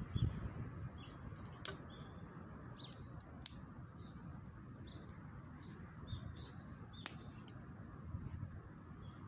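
Small birds chirping in short scattered calls, with a few sharp clicks and a steady low rumble underneath.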